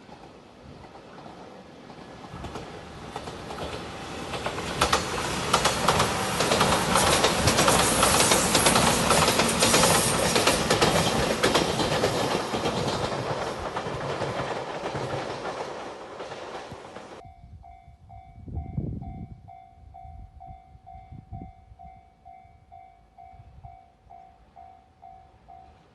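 Five-car Shiokaze limited express train passing a level crossing at speed: a rush of wheel and rail noise that builds, peaks with rapid clacks over the rail joints, and cuts off abruptly about 17 seconds in. After that, a level-crossing warning bell rings in a steady repeating pattern, about two to three strikes a second.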